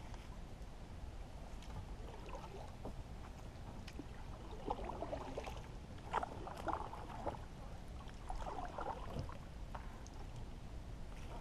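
Shallow marsh water sloshing and splashing in irregular bursts as a person and a dog move through it, over a low steady rumble.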